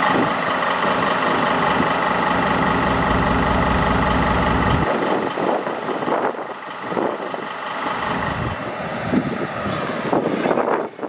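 Diesel locomotive engine running steadily with a deep rumble, and the low rumble drops away about five seconds in.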